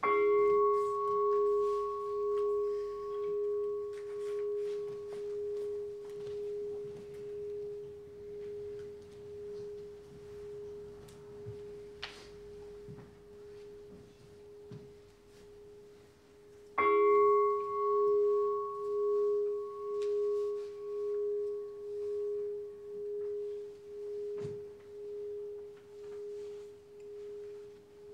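A Buddhist standing bowl bell is struck twice, about seventeen seconds apart. Each strike rings long with a slow wavering pulse about once a second and fades gradually.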